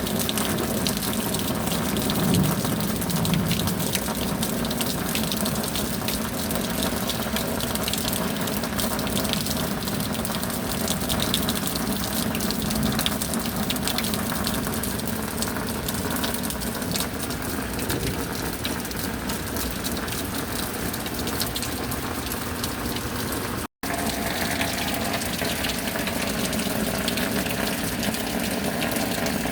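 Steady heavy rain falling and pouring, an even rushing hiss with no let-up, broken by a split-second gap of silence about three-quarters of the way through.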